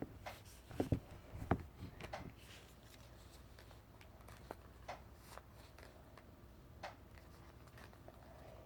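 Faint, scattered clicks and knocks of handling close to the microphone: several in the first two seconds, then a few sparse ones.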